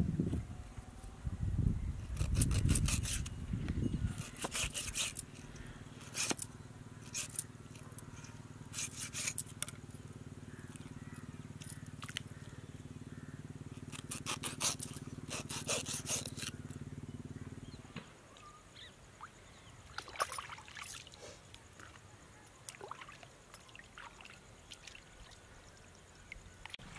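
Small knife scraping and cutting a pomfret on a stone slab as the fish is cleaned: a series of short, sharp scrapes in bursts. Under it, a steady low hum stops about two-thirds of the way in.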